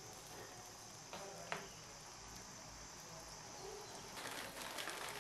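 Water with vegetables boiling in a non-stick pan while a fork stirs it, with one light tap of the fork on the pan about a second and a half in. A steady high hiss runs under it, and the bubbling crackle gets denser and a little louder near the end.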